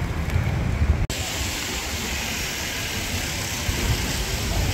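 City street ambience of road traffic: a steady rumble and hiss of passing vehicles. The sound breaks off for an instant about a second in and comes back with more hiss.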